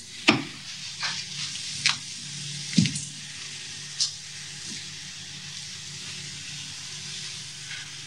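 Hands working pastry dough around a filling: a few short soft knocks and taps, five in the first four seconds, over a steady low hum.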